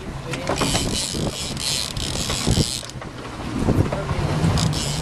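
Wind buffeting the microphone aboard a small boat on a choppy sea, under a low rumble. Two long hissing rushes stand out, the first starting about half a second in and lasting about two seconds, the second starting near the end.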